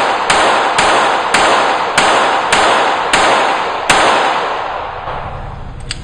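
Sig Sauer Mosquito .22 LR pistol firing seven shots, about one every half to three-quarters of a second, each echoing off the range's block walls, stopping about four seconds in; a faint click follows near the end. The string ends without the slide locking back on the empty magazine, which the owner puts down to a worn-out magazine.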